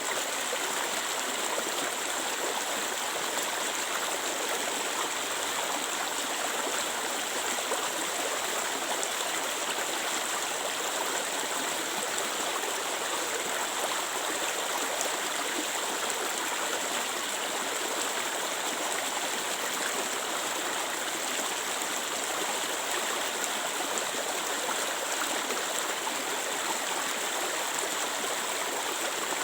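A stream of clear water flowing and splashing steadily.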